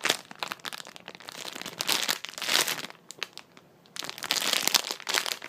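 Squishy toy packaging crinkling and rustling as it is handled, in three bouts with a short quiet pause about three seconds in.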